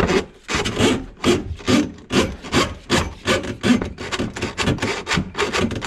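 Drain-auger cable scraping through a kitchen sink drain in quick repeated push strokes, about two to three a second. The cable is being worked against a grease clog that it will not get through.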